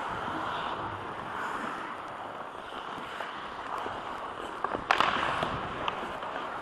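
Ice hockey skates scraping and gliding on rink ice, heard from a helmet camera, with a few sharp clacks about five seconds in.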